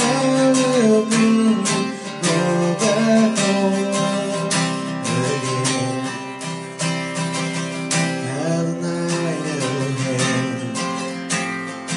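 Acoustic guitar strummed in a steady rhythm, playing chords through an instrumental passage with no vocal line.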